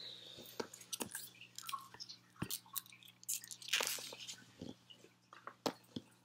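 Close handling noise: a string of sharp clicks and light knocks from plastic model horses being handled and stood up, with a short rustle a little before the 4-second mark, over a faint steady low hum.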